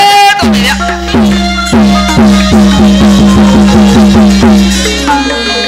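Burmese hsaing ensemble playing a run of tuned drum strokes. Each stroke drops slightly in pitch, and they quicken from about two to about four a second over a steady low tone, with sharp clicks on top.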